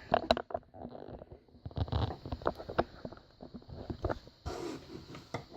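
Irregular small clicks, taps and rustles of a Euro cylinder lock and its picking tools being handled.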